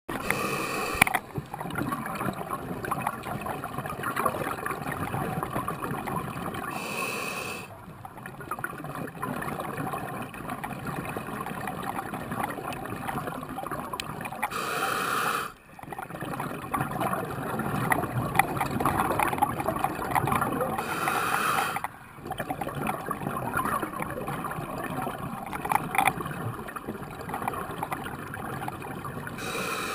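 Scuba diver breathing through a regulator underwater: a short inhalation hiss about every seven seconds, each followed by a long stream of exhaled bubbles.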